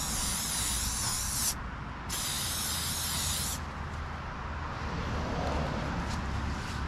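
Aerosol spray paint can hissing as it sprays, in two bursts of about a second and a half each with a short break between, then stopping about halfway through, leaving a fainter steady background noise.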